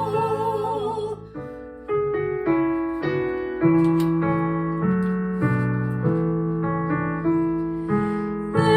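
Keyboard accompaniment playing a slow interlude of chords and melody notes between sung phrases of a church anthem. A held sung note with vibrato fades out about a second in, and the voices return right at the end.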